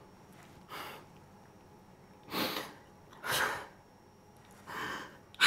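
A man crying: about five short, ragged sobbing breaths and sniffs, roughly a second apart, the last one the loudest.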